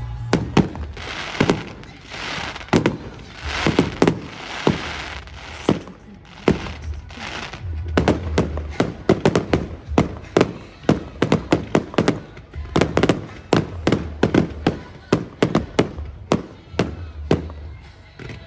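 Fireworks going off: a long run of sharp bangs and crackles, with hissing stretches in the first few seconds, then rapid volleys of reports several a second.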